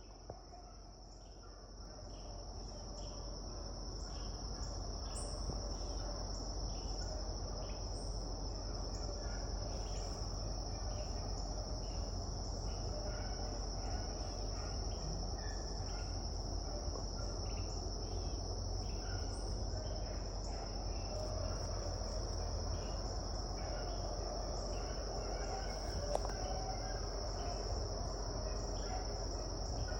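Steady chorus of crickets and other insects: a continuous high trill with many small chirps in it. Under it a low background rumble grows louder over the first few seconds, then holds steady.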